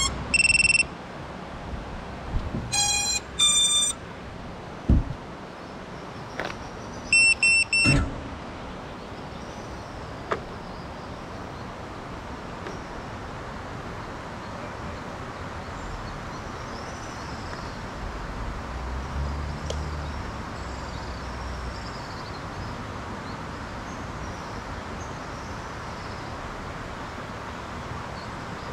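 Electronic beeps from the onboard electronics of a 5-inch FPV quadcopter, powered up on the ground. There is a short series in changing pitches about three seconds in and three quick beeps of one pitch just before eight seconds, with a few soft knocks among them. Then a steady outdoor background hiss with faint high chirps.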